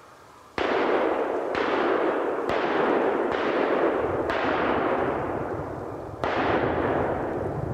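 A series of six loud, sudden blasts, each dying away over about a second; the last comes after a longer gap.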